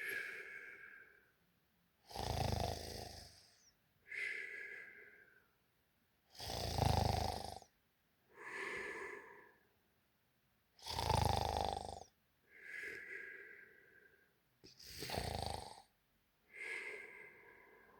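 A sleeping person snoring loudly in a steady breathing rhythm. A loud, low snore comes about every four and a half seconds, four times, and a softer, higher-pitched breath falls between each pair of snores.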